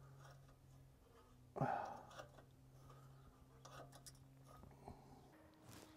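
Faint scratching and clicking of a hand tool picking tightly wound copper wire out of a seized, broken ABS wheel speed sensor lodged in a rusted wheel hub. One brief louder sound comes about one and a half seconds in, over a low steady hum.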